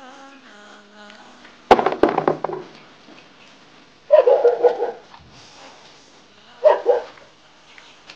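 A dog barking in three loud bouts, about two and a half seconds apart, with a fainter pitched sound before the first.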